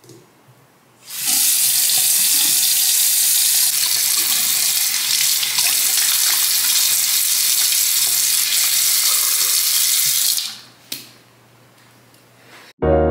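Bathroom faucet turned on, running a steady stream into a sink with hands held under it, then shut off after about nine seconds; a short knock follows.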